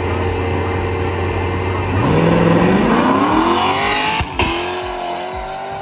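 Drag racing car launching off the line: the engine holds a steady low note, then about two seconds in its pitch climbs steeply as the car accelerates away. Just past four seconds there is a short break and the pitch drops, as at a gear shift, before the engine pulls on at a steadier pitch.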